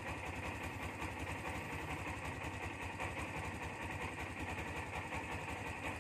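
Kawasaki Barako motorcycle's single-cylinder four-stroke engine idling steadily on a cold start, having fired at once from a kick start.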